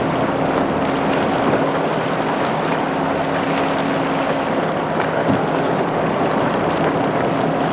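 Wind buffeting the microphone over choppy water, with a steady low motorboat engine hum underneath.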